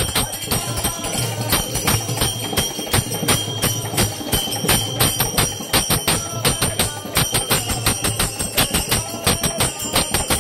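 Devotional bhajan music driven by a quick, steady beat of small hand cymbals, their metallic strikes ringing on over each other.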